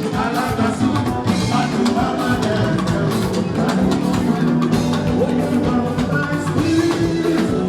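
Live band music with drums, guitar and some singing, playing on steadily.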